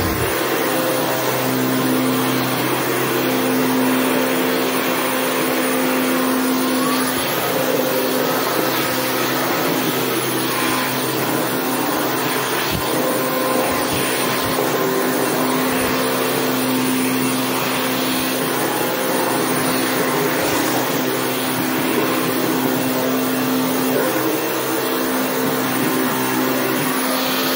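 Stick vacuum cleaner running steadily while it is pushed over a tiled floor: an even motor hum over a rush of air.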